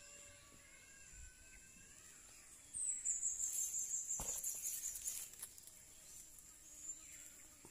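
Outdoor ambience with insects trilling steadily at a high pitch and birds calling in the first couple of seconds. About three seconds in, a louder high hiss with crackles starts, with a single thump in the middle of it, and dies away by about five and a half seconds.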